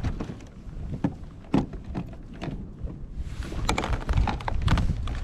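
Wind rumbling on the microphone, heavier about three and a half seconds in, with scattered light knocks and clicks.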